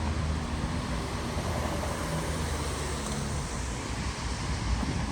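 Steady rumble of a car being driven, engine and road noise with no sharp events.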